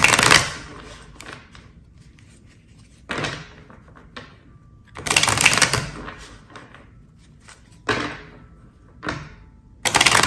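A deck of Healing Light Tarot cards being shuffled by hand, in about six short bursts of card rustle and clatter with pauses between.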